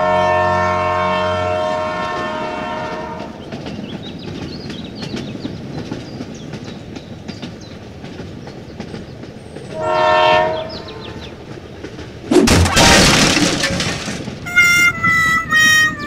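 Battery-powered toy steam locomotive running on plastic track: an electronic whistle toot at the start and again about ten seconds in, with a motor whirr and small rapid clicks of the wheels on the track between. A loud hiss comes about twelve seconds in, followed by short pitched electronic tones near the end.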